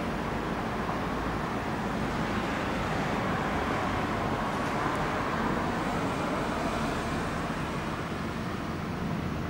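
Steady road traffic noise, swelling a little around the middle.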